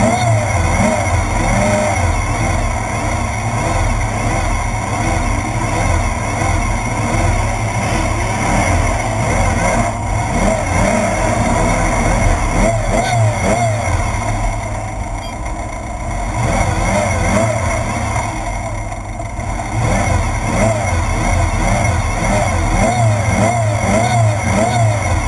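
Class 1/2-1600 desert race buggy's air-cooled 1600 cc VW engine revving up and down over and over, over a heavy low rumble. The engine eases off briefly twice past the halfway point.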